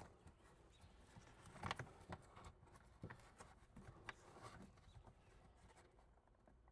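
Faint, scattered taps and clicks, with a few light knocks about two, three and four seconds in, from hands working a rear dash camera's cable and mount inside a car. Between them only a low hiss.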